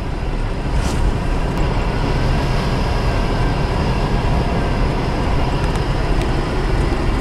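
Mitsubishi Kuda's 1600 cc engine, fitted with a Toyota Kijang 7K twin-barrel carburettor, running steadily at low revs in top gear, with tyre and road noise, heard from inside the cabin.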